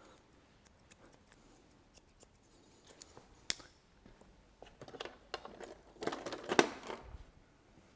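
Hairdressing scissors snipping and clicking faintly in short hair, in scattered single strokes, with a louder cluster of clicks and rustling about six seconds in.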